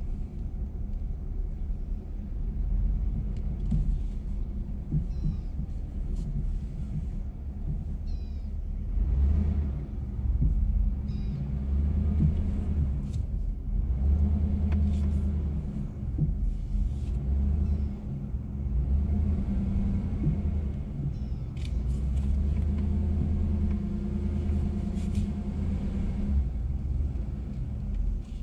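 2021 GMC Sierra X31 pickup driving through deep sand: a low, uneven rumble of engine and drivetrain that swells and eases as it works through the sand.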